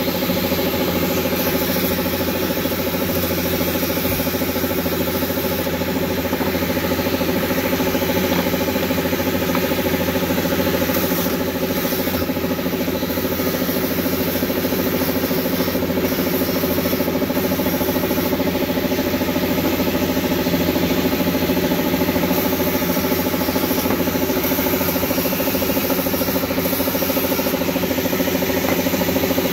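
Paint spray gun hissing continuously as it coats a stack of brake pads black, over the steady hum of the machine feeding it, most likely an air compressor.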